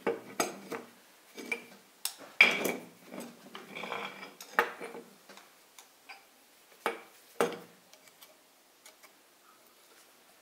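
Irregular metallic clinks and knocks of a piston and connecting-rod assembly being handled against an engine block, with two sharper knocks about seven seconds in, thinning to faint ticks near the end.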